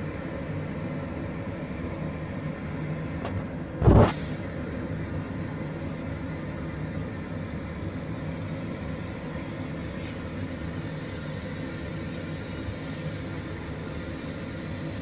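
Steady low background rumble, with one sharp knock about four seconds in and a couple of faint clicks: a steel cutter being pressed through thin rolled dough onto a wooden board.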